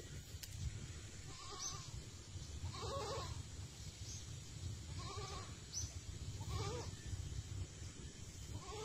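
Goat bleating faintly, about five short calls a second or two apart.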